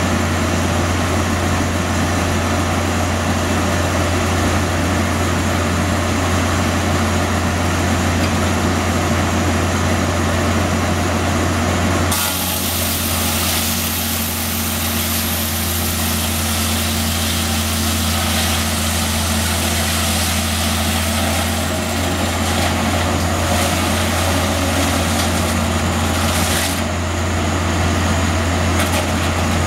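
Motor-driven circular sawmill: the drive motor runs steadily. About twelve seconds in, the big circular blade bites into a log on the carriage, and a loud, high, noisy rasp of sawing lasts about fifteen seconds before stopping as the cut finishes.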